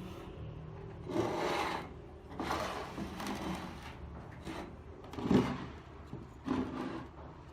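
Metal parts of an old angle grinder being handled and fitted together, with several rubbing, scraping passes and one sharp knock about five seconds in, as newly wound field coils go into the motor housing.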